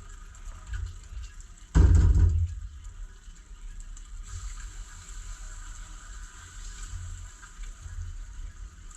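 Eggs frying in butter in a pan, a steady sizzle, under a low fluctuating rumble. A loud low rumble lasts about half a second, about two seconds in.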